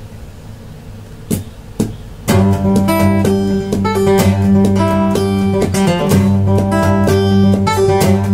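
Two short knocks, then about two seconds in an acoustic guitar starts playing a picked, strummed riff with a steady low bass note under the plucked notes.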